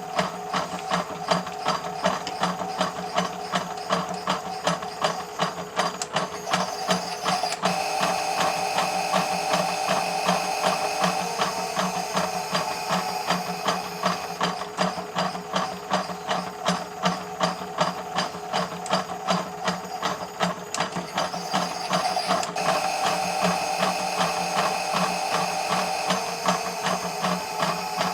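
Toy Miele W1 washing machine running its cycle: the small electric motor whines steadily while the geared drum drive clicks and rattles about three times a second. The motor's tone brightens for a few seconds, twice.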